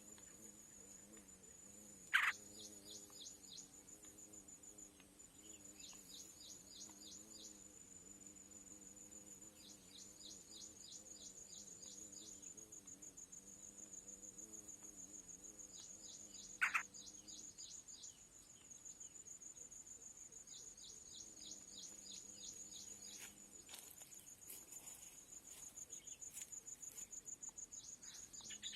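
Steady high insect trill with short runs of rapid high bird chirps every few seconds, and two brief louder chirps, one about two seconds in and one past the middle.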